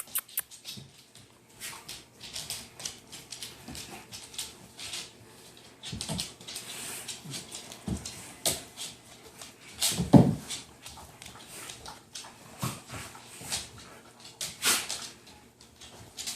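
German shepherd puppies play-fighting, whimpering and scuffling in many short bursts, the loudest about ten seconds in.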